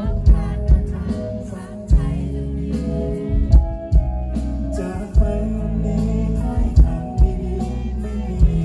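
Live pop-rock band playing: a male singer over electric bass and drums, with heavy bass and sharp drum hits.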